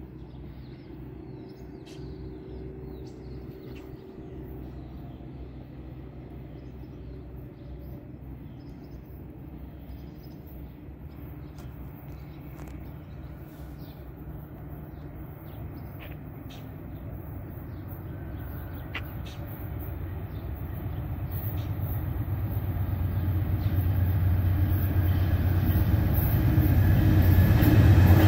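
A pair of GE P42DC diesel locomotives hauling a passenger train approaching at speed: a faint distant rumble that swells steadily louder over the last ten seconds as the train nears.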